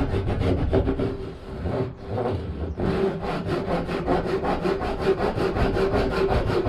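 Japanese pull saw cutting across a wooden board in quick, even strokes, several a second, with a brief break about two seconds in. It is sawing down knife-scored lines to form the walls of a slot.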